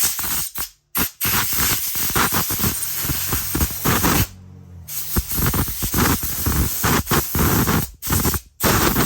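Compressed air from an air-hose blow gun blasting out a small mower engine, in bursts of loud hissing: a short blast, a long one of about three seconds, a brief pause, then more blasts.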